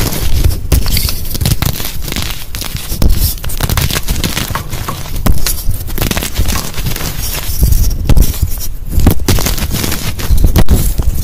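Dyed gym chalk crushed and crumbled by hand: a dense, continuous run of crisp crunches and crackles as the blocks break apart.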